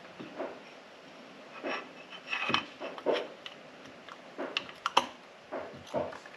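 Aluminium piston being handled and lined up on the connecting rod of a Honda FL350 engine: light metal clicks and knocks, with a sharper clink about halfway through and another about five seconds in.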